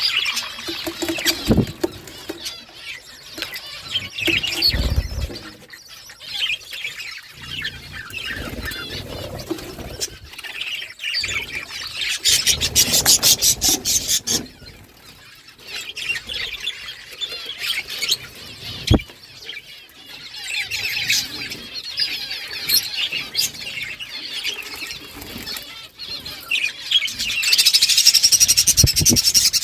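A flock of pet budgerigars chirping and chattering, with several birds calling over one another; the chatter grows denser and louder about twelve seconds in and again near the end. A few short low thumps are heard between the calls.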